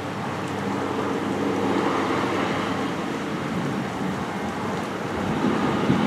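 Traffic hissing past on a rain-wet road, with a car's tyre noise swelling and fading about two seconds in, over steady rain.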